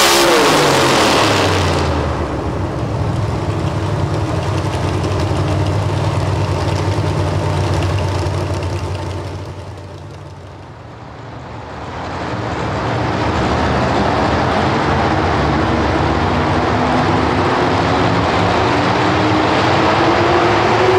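Modified four-wheel-drive pulling pickup's engine winding down from full power at the end of a pull, then running at a steady low note. About halfway the sound fades out and back in, and near the end another pulling truck's engine builds revs with a rising whine.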